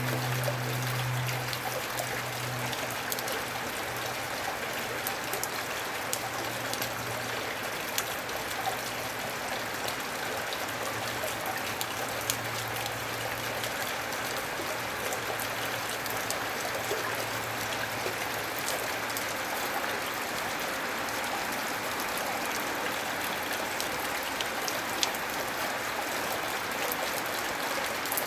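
Gentle, steady rain falling, with scattered sharp drop ticks. A faint low hum underneath fades out about two-thirds of the way through.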